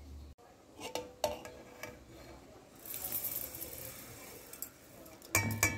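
Split urad dal grains pouring into a stainless-steel mixer-grinder jar with a hissing rattle of grains on steel. Metal clinks with a brief ring come about a second in, and a louder clatter near the end.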